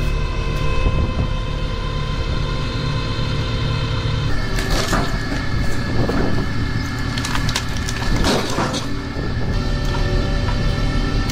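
A wood splitter forcing apart a thick log. The wood cracks and splinters in several sharp bursts from about four seconds in, over the steady hum of the machine.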